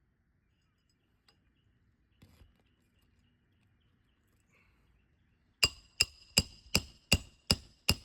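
Hammer blows driving a roofing nail into an asphalt shingle roof with a roof snake. Seven quick, sharp metallic strikes, about three a second, each with a short ring, begin about five and a half seconds in after a stretch of near quiet.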